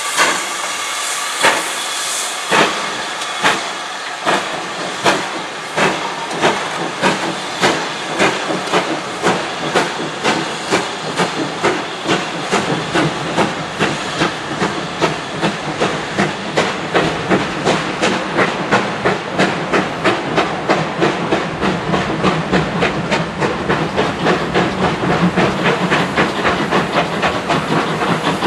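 Steam train pulling away: a steady hiss of steam under regular sharp beats that come quicker and quicker as the train gathers speed, with a low rumble from the passing coaches building near the end.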